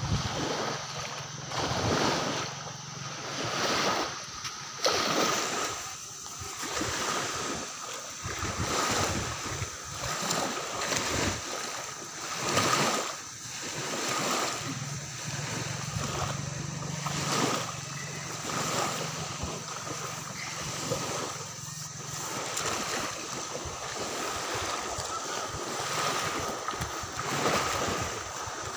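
Surf washing on a beach, swelling and falling every second or two, with wind on the microphone and a faint steady high whine.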